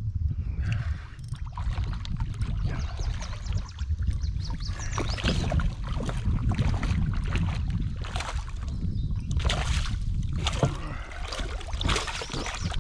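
A hooked catfish thrashing and splashing at the surface right beside a kayak, in irregular bursts through most of the stretch. Underneath runs a steady low rumble of wind on the microphone.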